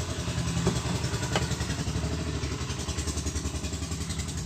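An engine idling steadily with an even low pulse, and three sharp clicks in the first second and a half.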